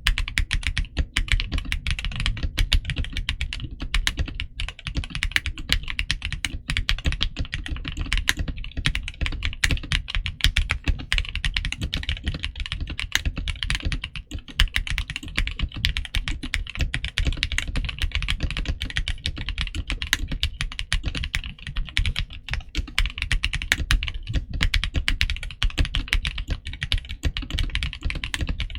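Gamakay SN75 mechanical keyboard with Gateron Milky Yellow switches on a polycarbonate plate, typed on rapidly and continuously, several keystrokes a second.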